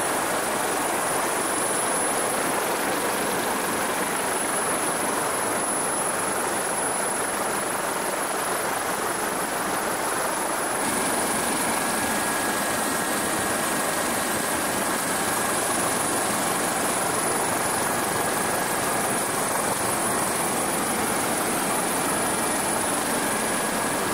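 Helicopter noise heard from on board: a steady, even rush with a faint high whine running through it. The noise shifts slightly about eleven seconds in.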